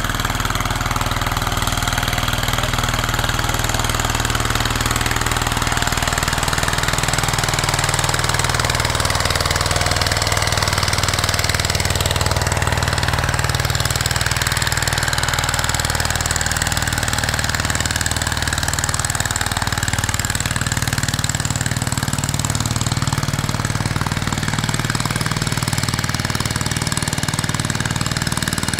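Engine of a wooden river boat running steadily as the boat motors off from the landing, its pitch shifting slightly now and then.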